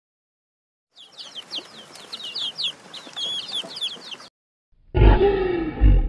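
Many quick, high chirping calls from small birds for about three seconds, then a brief gap and a loud, low animal call with a wavering pitch near the end.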